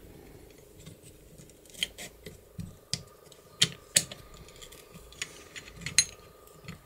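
Small metal clicks and taps from a garage door lock as its washer is fitted back into the steel lock case by hand: scattered sharp clicks, about eight of them, most in the middle seconds.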